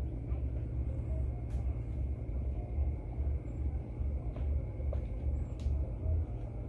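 Uneven low rumble that pulses irregularly, with a few faint clicks.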